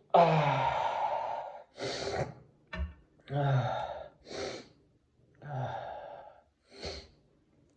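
A man sneezing: a long, loud, breathy sneeze with his voice falling in pitch at its start, followed by a string of shorter gasping breaths.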